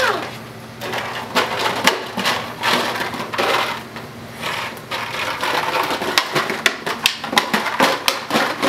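Empty plastic soda bottle crinkling and crackling in irregular bursts of sharp clicks as a miniature dachshund puppy bites, pushes and drags it around.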